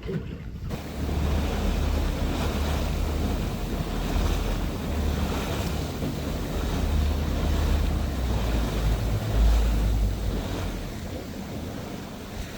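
Wind buffeting the microphone over the rush of sea water around a moving boat, starting abruptly about a second in and running on as a steady hiss with a heavy low rumble.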